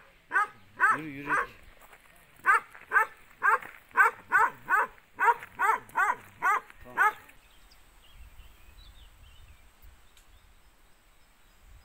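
A dog barking repeatedly, about two barks a second, in a run of roughly fifteen barks that stops about seven seconds in.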